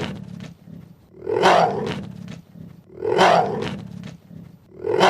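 A big cat's call, played as the cheetah's sound, repeated about every two seconds. Each call swells quickly and then tails off.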